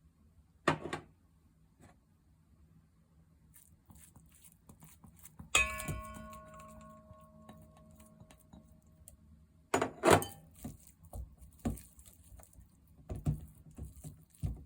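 Kitchen utensils knocking against a bowl while ingredients are mixed. About halfway through, one strike rings on with a clear tone for a few seconds, and a cluster of clatters and knocks follows.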